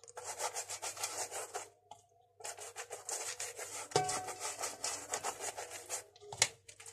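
Pastry brush stroked quickly back and forth over the oiled crust of stuffed bread loaves, a rough rubbing swish. It comes in two runs of strokes with a short pause about two seconds in.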